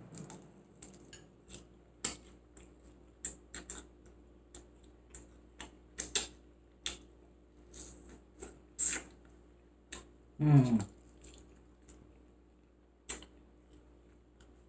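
Close-miked eating sounds: irregular wet mouth clicks and lip smacks of someone chewing food. About ten and a half seconds in there is a brief low murmur of the voice that falls in pitch.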